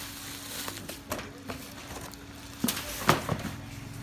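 Bubble wrap crinkling and rustling as a wrapped handheld car vacuum cleaner is handled and pushed into its cardboard box. Several sharp knocks of the packaging come through, the loudest about three seconds in.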